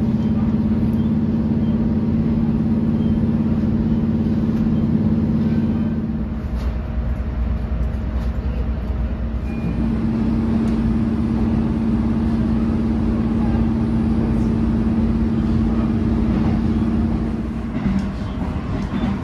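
Diesel railcar under way, heard from inside the passenger cabin: a steady engine hum over the rumble of the wheels on the rails. The hum drops away about six seconds in, leaving a lower rumble, returns a few seconds later and breaks up near the end.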